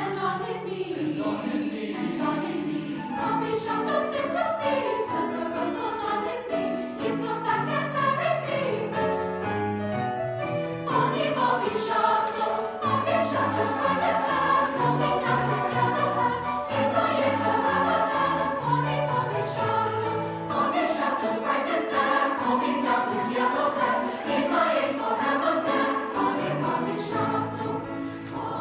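Large mixed choir of young voices singing in parts. The texture thins briefly about nine seconds in, then the full choir comes back in.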